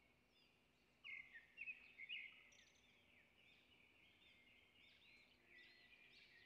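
Faint chorus of small birds chirping and twittering, starting about a second in and carrying on with many overlapping short notes, over a faint steady low hum.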